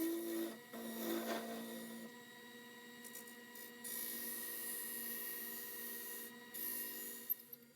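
Lathe running with a steady hum while a tool scrapes against the spinning workpiece, the scraping hiss strongest in the second half, with a few sharp clicks near the end.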